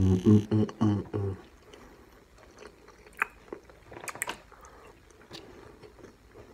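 A person chewing food with faint, scattered wet clicks and crunches. A short voiced sound from the eater comes in the first second and a half.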